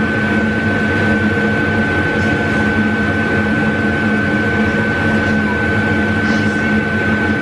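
Steady machine hum with a constant high-pitched whine, from a kitchen appliance running, such as an extractor hood fan or a cooktop.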